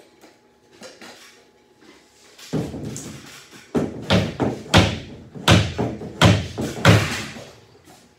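A drywall sheet being handled and pushed up against wooden ceiling joists: a scraping rustle, then a run of about seven heavy thumps and knocks, roughly two-thirds of a second apart.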